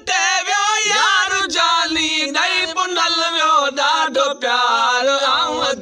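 Men's voices singing a Sindhi Sufi kafi unaccompanied, two voices together, in a long drawn-out phrase whose pitch wavers. It settles on a long held low note near the end.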